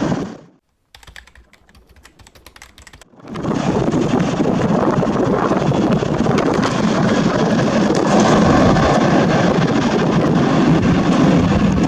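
Sound cuts out just after the start, with a few faint clicks; then, about three seconds in, a Boeing 737-800's CFM56 jet engines come in loud and steady at takeoff power.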